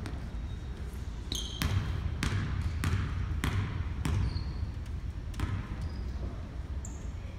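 A basketball dribbled on a hardwood gym floor before a free throw: a string of evenly spaced bounces a little over half a second apart, starting about a second and a half in.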